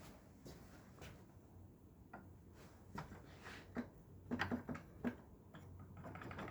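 Faint, irregular clicks and knocks, with a short cluster of louder ones a little past the middle.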